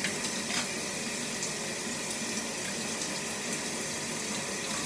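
Steady running water from a tap, with two small clicks near the start.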